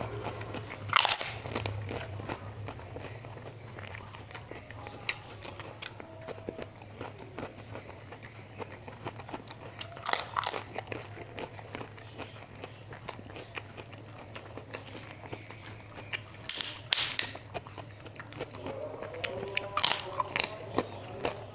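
Close-up eating sounds: loud crisp crunches of bites into kerupuk crackers about a second in and again around ten, seventeen and twenty seconds, with steady chewing clicks of fried rice between, over a faint low hum.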